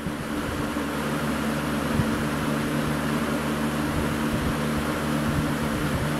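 1989–90 Lasko 20-inch box fan running, a steady whoosh of moving air over an even motor hum. The owner suspects its worn motor may be going bad.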